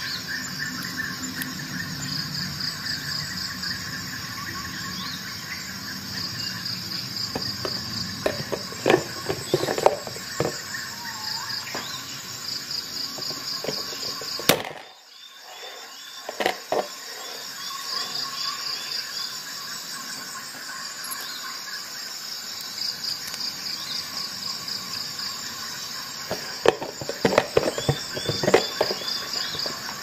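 Multi-tool pliers' wire cutters snapping through 2.4 mm nails inside a clear plastic box: a burst of sharp clicks and knocks about eight seconds in and another near the end, with cut pieces rattling on the plastic. A steady high pulsing chirr runs underneath.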